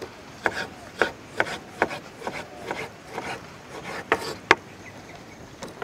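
Kitchen knife chopping vegetables on a bamboo cutting board: a series of irregular, separate taps of the blade on the wood.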